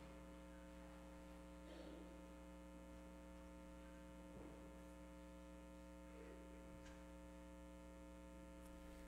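Near silence: a steady electrical mains hum in the recording, with a few faint soft sounds.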